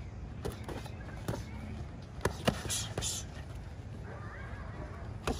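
Boxing gloves landing during sparring: a handful of sharp slaps and thuds, the loudest about two and a half seconds in, followed by a short hiss. A low steady rumble runs underneath.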